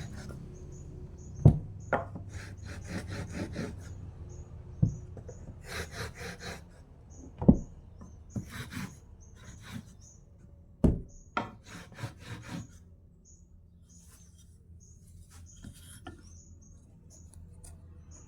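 Wood being worked by hand: short runs of quick rasping strokes, broken by several sharp knocks, then quieter after about thirteen seconds.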